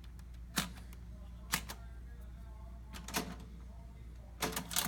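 Keys of a 1904 Burroughs adding machine pressed down one at a time, each a sharp mechanical click, about five spread over the first three seconds. Near the end the side crank handle is pulled, a quick cluster of louder clacks from the mechanism that releases the depressed keys.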